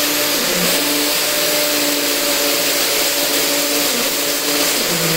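Foster FK 38-21 21V cordless drill running with its bit pressed against a painted wall, a motor whine over a gritty grinding hiss. The pitch dips briefly about half a second in and again near the end as the bit loads. The supplied bit keeps spinning on the surface and will not bore a hole even under full pressure.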